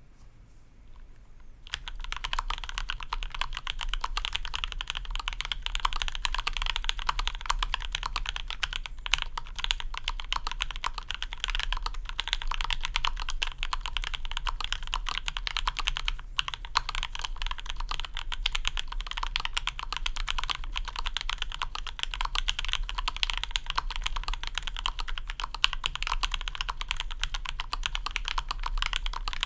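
Steady, fast typing on a custom mechanical keyboard: lubed H1 switches in a 5 mm acrylic plate, under GMK ABS keycaps. It starts about two seconds in, and there is a brief pause about halfway through.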